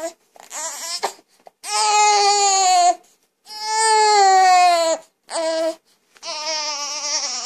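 A young child crying: a run of wailing cries broken by short breaths, the two longest in the middle each drawn out and sliding down in pitch.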